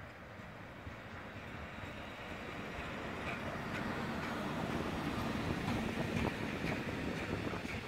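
Hectorrail class 151 electric locomotive hauling a freight train of tank wagons approaches and passes, its running noise growing louder, then the tank wagons roll by with wheel clicks over the rails.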